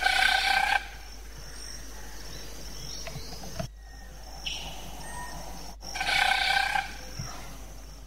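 African broadbill's display sound, a pitched buzzy burst under a second long, heard twice: at the start and again about six seconds in. Behind it runs a steady high drone of forest insects.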